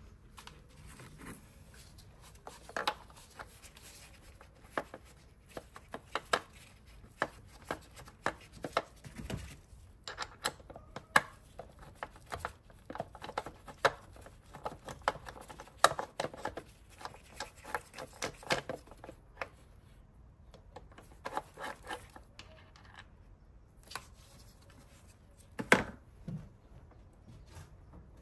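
A ratchet wrench clicking in short runs and hand tools knocking against metal as the intake manifold bolts are undone. The clicks come irregularly, in quick clusters, with one sharp knock near the end.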